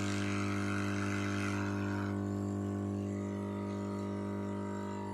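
Hot air rework gun blowing, a rush of air over a steady electrical hum; the air fades away about two seconds in while the hum carries on.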